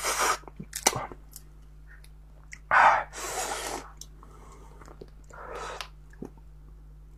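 Close-miked eating noises while snail meat is pulled from the shell: a few small clicks and crackles, and two hissing breaths. The louder breath comes about three seconds in and lasts about a second.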